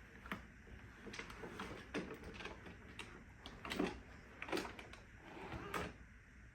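Scattered light clicks and knocks of hands handling the plastic body of a Neato Botvac robot vacuum, a few slightly heavier knocks in the second half.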